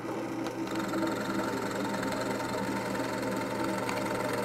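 Drill press running with a steady hum as its bit bores a rung mortise into a wooden chair leg.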